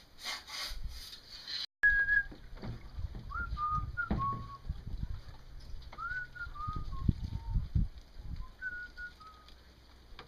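A few light metallic clinks of aluminium tubing being fitted together, cut off suddenly. Then come four short phrases of clear whistled notes, each phrase stepping down in pitch, over low knocks and bumps from handling the kayak's pipe frame.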